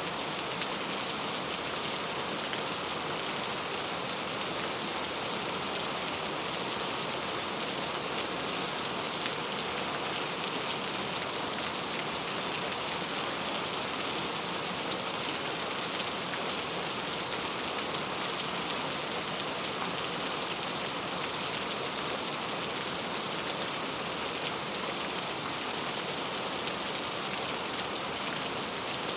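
Rain falling steadily on a road: an even, unbroken hiss of many drops.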